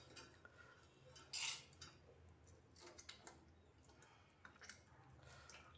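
Faint wet squelching and small splashes from a hand mashing tomatoes and soaked tamarind in water to dissolve them for rasam, with one louder squelch about a second and a half in.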